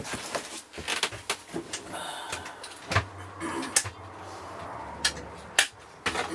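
Workbench handling noise: a string of sharp clicks and knocks as tools and parts are picked up and put down, with a low hum in the middle.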